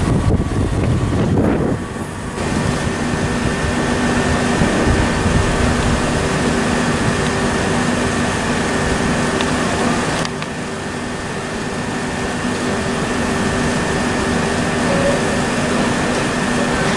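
The rush of a Thameslink Class 700 electric train passing close by, dying away about two seconds in. Then a steady electric hum with several held tones, from a Southern Class 377 electric multiple unit standing at the platform with its on-board equipment running.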